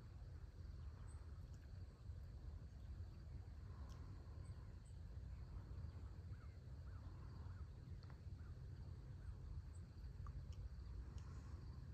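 Faint dawn farm-field ambience: insects give a steady high trill, birds make scattered short chirps, and a steady low rumble runs underneath.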